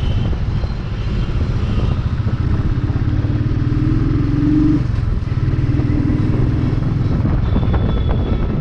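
Motorcycle engine and exhaust running while riding in traffic. The engine note rises as it pulls about three seconds in, dips briefly near five seconds, then rises again.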